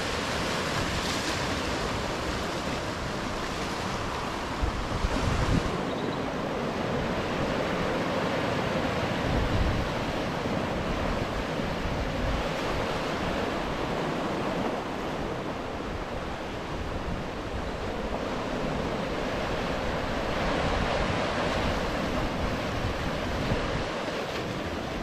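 Sea surf breaking and washing over shoreline rocks, a steady rushing, with wind buffeting the microphone in a few gusts.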